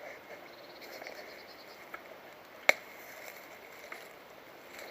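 One sharp crack about halfway through, over faint rustling and a couple of soft clicks.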